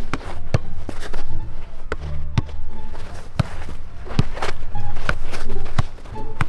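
A football being juggled and passed: a series of sharp, irregularly spaced thuds as the ball is struck by feet and bodies, with footsteps on artificial turf.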